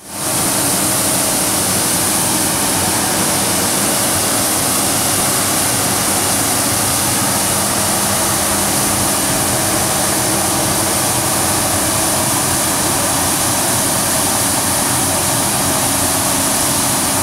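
CityCat 5000 compact street sweeper working, its engine and suction system running steadily with a strong high hiss over a lower drone, side brushes turning on the concrete.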